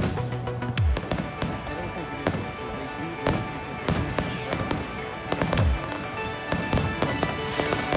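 Aerial fireworks shells bursting in quick succession, a rapid series of sharp bangs with a few heavier booms, over music playing along with the show.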